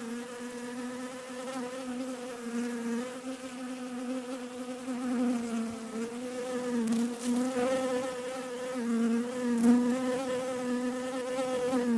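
A bee buzzing in flight: one steady hum with a slight waver in pitch.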